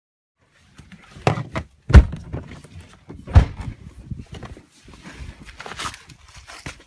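Car door being opened and a person stepping out onto wet, muddy ground: several sharp thunks and clunks, the loudest about two seconds in, then scuffing footsteps.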